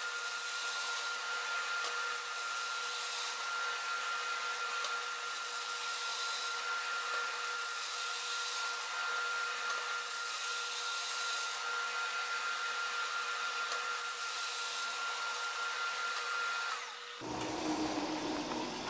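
Flatmaster drum sander running, a steady whine over a rushing hiss, as a red oak raised-panel door is pushed back and forth under the sanding drum in repeated passes. About 17 s in, the whine and hiss stop as the machine is switched off.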